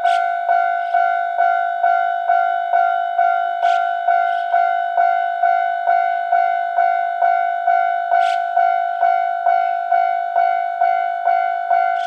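Japanese level-crossing warning bell ringing a steady, evenly repeated ding, about two and a half strokes a second, each starting sharply and fading. This is the signal that a train is approaching. A few faint short clicks are heard near the start and at about four and eight seconds.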